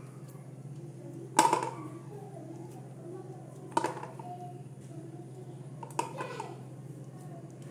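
Balls of kneaded wheat dough set down one by one into a stainless steel bowl, three times, each with a knock and a short metallic ring; the first is the loudest. A steady low hum runs underneath.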